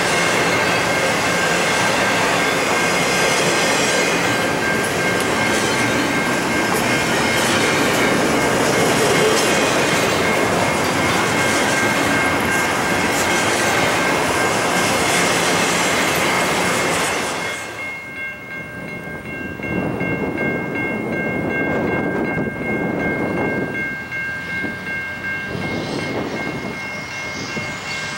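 Intermodal freight train's double-stack well cars rolling past on the rail. The loud wheel and car noise drops off sharply about two-thirds of the way through as the last car passes, leaving a weaker, wavering rumble. A steady high-pitched ring runs throughout.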